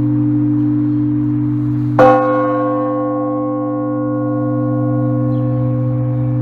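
Russian Orthodox church bells ringing: a low, steady bell hum carries on while one bell is struck once about two seconds in, its many overtones fading slowly.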